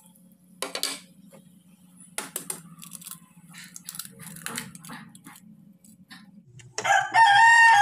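An egg tapped with a few light knocks and cracked open into a pan of water. Near the end a rooster crows, a long loud call that is the loudest sound here.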